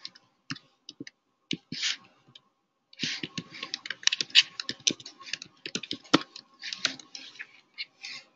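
Typing on a computer keyboard: a few scattered keystrokes, then a fast, dense run of key clicks from about three seconds in.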